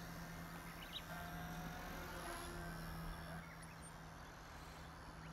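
A K110 micro RC helicopter in flight at a distance: a faint, steady hum from its rotor and motor. A couple of faint high chirps come about a second in.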